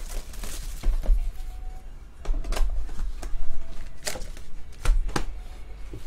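Baseball card hobby box being opened and its foil-wrapped packs handled: cardboard flaps and pack wrappers rustle and crinkle in a handful of short bursts.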